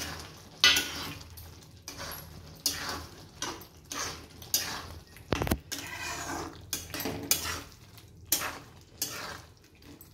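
A spatula scraping and knocking against a kadhai as prawns are stirred through a thick curry masala, in irregular strokes about one or two a second, the sharpest about a second in.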